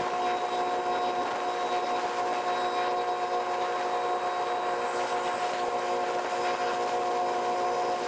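Water jet from a washing hose spraying and hissing against the tube banks of a ship's exhaust gas boiler during washing, over a steady whine of several tones at once.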